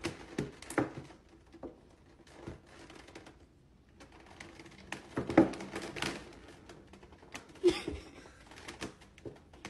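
Thin clear plastic cupcake container crackling and clicking irregularly under a cat's paws as it presses down on the lid, with louder pops about five and a half seconds in and near eight seconds.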